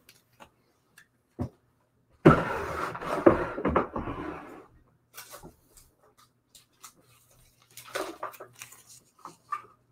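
Handling noise from things being moved on a tabletop: a single thump, then about two seconds of rustling and clattering, then a few light clicks and taps.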